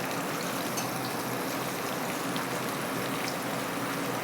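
Flour-coated chicken skin sizzling steadily in hot oil while deep-frying, with a few faint crackles.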